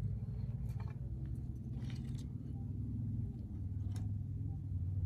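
Split firewood sticks knocking together as they are laid one by one onto a burning wood fire in a clay oven, a few short knocks over a steady low rumble.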